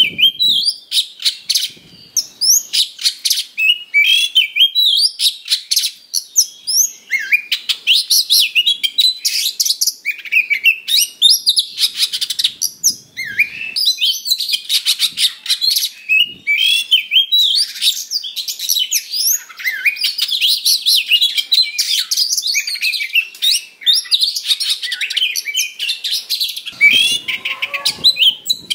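Oriental magpie-robin singing a loud, fast, unbroken run of varied sweeping whistles, chirps and harsh notes, the insistent fighting-mood song that keepers use to provoke other magpie-robins into singing.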